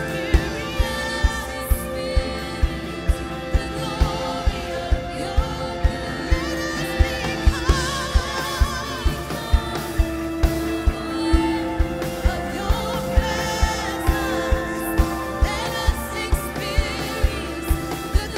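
Live worship band playing a slow song, with a steady drum beat a little under two beats a second under held chords and a singing voice.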